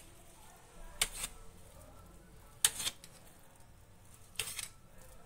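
Kitchen knife clicking against a steel plate while soaked soya chunks are cut in half: three short clicks about a second and a half apart.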